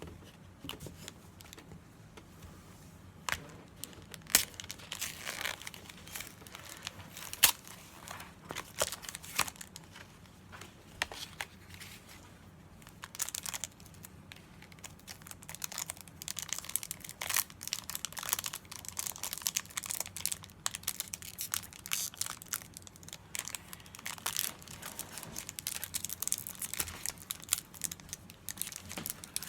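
Foil wrapper of a Pokémon Evolving Skies booster pack being crinkled and torn open, with irregular sharp crackles throughout.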